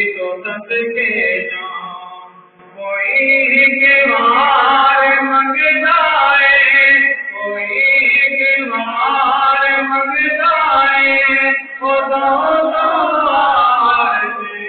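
A male voice singing a Punjabi naat into a microphone in long, held melodic lines, after a short breath pause about two and a half seconds in.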